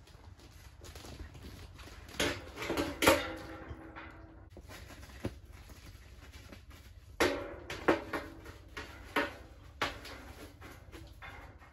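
Metal stovepipe sections clanking and scraping as they are pushed together and fitted up through the tent's roof jack, the louder knocks leaving a short metallic ring. A cluster of knocks comes a couple of seconds in, then a run of sharp knocks later on.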